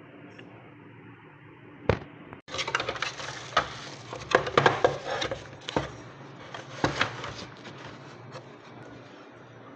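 Hard objects clinking and scraping in a dense flurry lasting about five seconds, after a single sharp click about two seconds in: tools and small metal parts being handled during a vacuum-cleaner motor repair.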